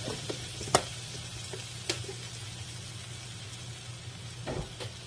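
Butter starting to sizzle faintly as it melts in a nonstick wok, over a steady low hum. A few sharp knocks: the loudest just under a second in, another about two seconds in, and a couple more near the end.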